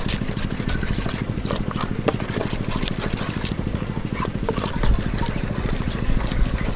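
Metal spoon clicking and scraping against a metal bowl as a flour and egg batter is stirred, over a steady low motor drone.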